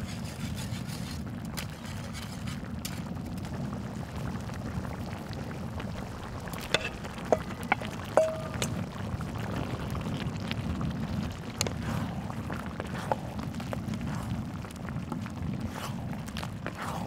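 Black-bean sauce cooking on a cast-iron cauldron-lid griddle, with water pouring from a hose into the hot pan over a steady low rumble. About seven to eight seconds in come a few sharp clinks, one briefly ringing, as a metal bowl knocks against the pan while fish cake is tipped in. Near the end, wooden spatulas stir the rice cakes.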